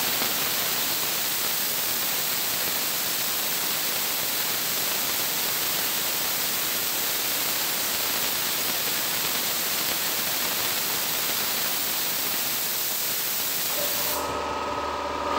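Compressed air hissing steadily as it is bled from the tank of an ABAC 100-litre air compressor. Near the end the hiss stops and the compressor starts: its 3 hp electric motor and two-piston pump start running as the pressure switch cuts in at about 6 bar.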